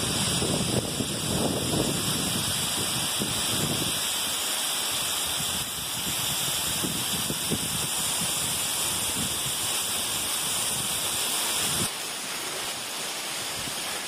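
Waterfall rushing steadily, a continuous hiss of falling and splashing water, with wind buffeting the microphone during the first few seconds. Near the end the sound drops to a quieter steady hiss.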